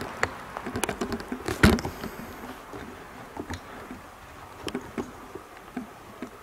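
Irregular light knocks and clicks, one louder than the rest about one and a half seconds in, over a faint steady hiss.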